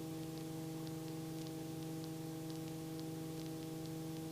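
Helicopter in flight heard through the intercom: a steady low hum with several even overtones over a faint hiss, with a few faint ticks.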